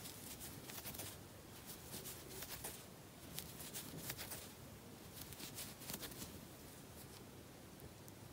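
Faint rustling and soft, irregular ticks of a crochet hook and yarn as single crochet stitches are worked along the edge of a crocheted piece.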